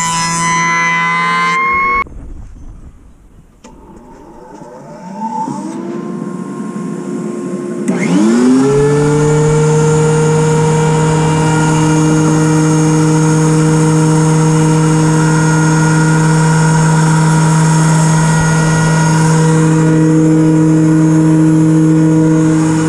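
DeWalt benchtop thickness planer's motor winding up with a rising whine about eight seconds in, then running steadily. A pitched machine sound at the start cuts off abruptly after about two seconds.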